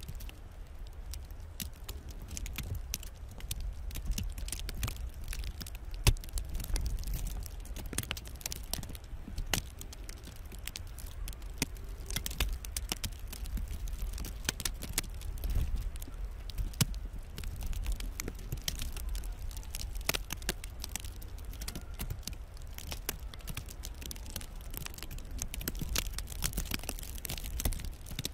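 Ice pellets ticking and crackling on frozen snow close by, a dense, irregular patter of sharp clicks over a low rumble.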